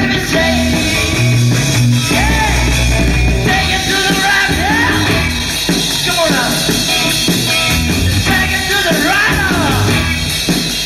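Rock and roll band playing an upbeat number: drums, bass and electric guitar under sung vocals broken by shouts.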